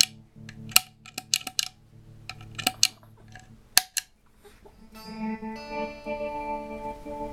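Guitar played through a Montreal Assembly Rand() random tremolo pedal: the signal is cut into sharp, irregularly spaced stabs with near silence between them, the glitchy random chopping of the pedal. About five seconds in a chord sustains, its level wavering unevenly.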